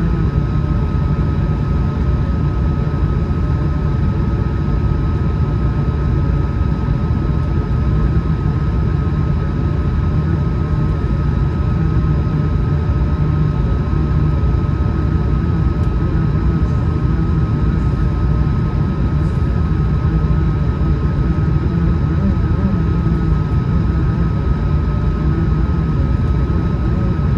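Steady cabin noise of an Airbus A220-100 airliner: its Pratt & Whitney PW1500G geared turbofans and airflow make a deep, even rumble with a thin steady high tone on top.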